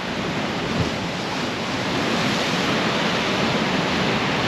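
Sea swell washing in against the rocks: a steady rush of surf that grows a little louder about two seconds in.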